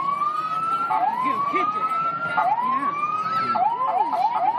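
Emergency vehicle siren wailing: a tone that climbs in pitch and snaps back down about every second and a half, breaking into a short run of fast yelping sweeps near the end.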